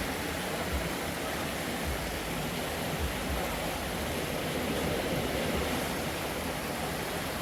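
Steady rushing of running water, even and unbroken, with some low rumble underneath.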